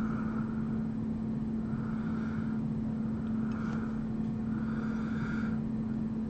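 Steady low hum over an even background noise, with faint soft sounds recurring about every second and a half.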